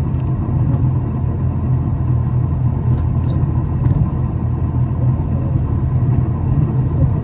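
Isuzu Erga city bus heard from inside the cabin while under way: a steady low rumble of its diesel engine and the road, with a few faint ticks.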